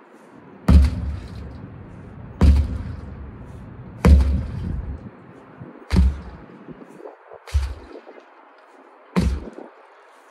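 A sledgehammer striking a large tractor tire six times, about every one and a half to two seconds. Each blow lands as a sharp smack with a deep, dull thud that dies away within a second.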